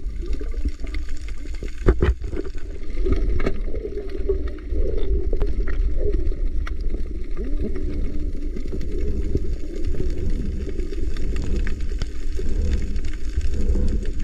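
Underwater sound heard through a diving camera's housing as the diver swims: a steady low rumble of moving water with bubbling and gurgling, and a few sharp clicks, the loudest about two seconds in.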